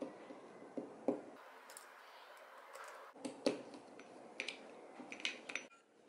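Faint, scattered clicks and light metallic taps of an Allen key turning and lifting out the small steel screws of a steering-wheel quick-release hub.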